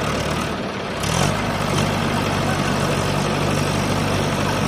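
Diesel tractor engine running steadily. Its note shifts about a second in and then holds steady.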